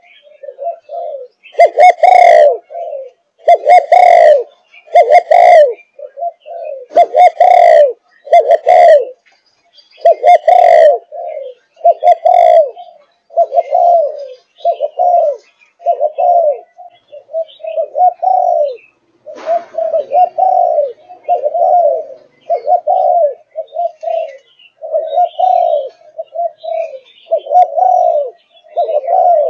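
Five-and-a-half-month-old Malaysian spotted dove cooing in a long, steady run of short coos, about one a second. The coos in the first ten seconds are very loud and distorted.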